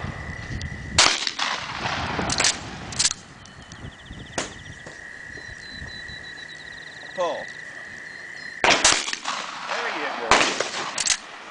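Winchester Model 1893 pump-action shotgun fired at thrown targets: loud shots with a ringing tail about a second in and twice near the end, with shorter sharp cracks in between.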